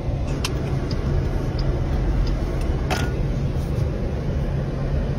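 Car running, heard from inside its cabin: a steady low rumble of engine and road noise, with a couple of short clicks about half a second in and about three seconds in.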